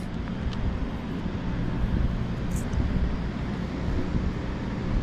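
Steady low mechanical rumble with a hiss over it, holding even throughout.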